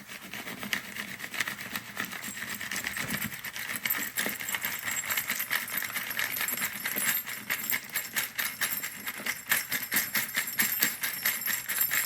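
Freshly tumbled pinball switch parts and steel pinballs rattling and clinking in a sieve as the tumbling media is shaken off them. A steady jingle of many fast small clicks, a little louder in the second half.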